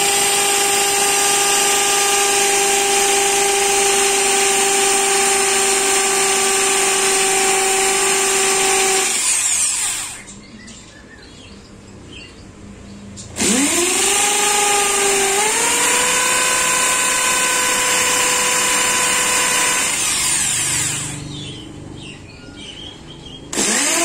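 Corded electric drill boring into a hard spot in a dry wood branch. The motor runs with a steady whine, stops about ten seconds in, and spins back up with a rising whine a few seconds later. It stops again after about twenty seconds and starts once more just before the end.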